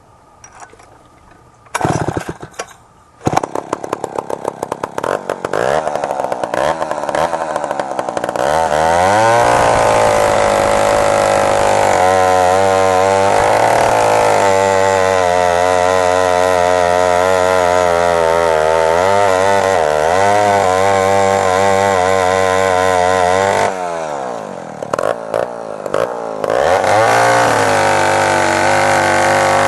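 Vintage Poulan F3-100 sandcast two-stroke chainsaw pull-started: a brief fire about two seconds in, then it catches and runs unevenly. It revs up to a high, wavering engine note for about fifteen seconds, drops back to idle with a few blips, and revs up again near the end. It is running again after its stuck carburetor needle valve was freed.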